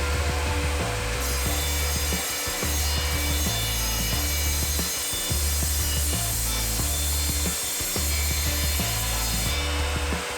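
Evolution R255SMS sliding mitre saw running with its multi-purpose blade, a steady whine, and cutting through metal stock from about a second in until near the end, with a grinding, ringing cut. A backing track with a regular bass beat plays underneath.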